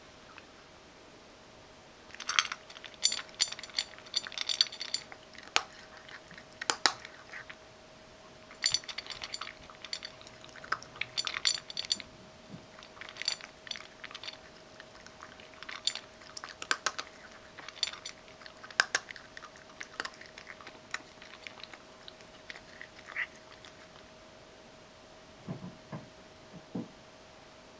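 Ragdoll cat chewing dry kibble, crunching it in runs of sharp crunches with short pauses between mouthfuls.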